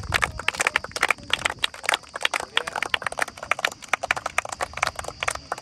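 Rapid, irregular sharp taps, several a second, like many people's footsteps or hands.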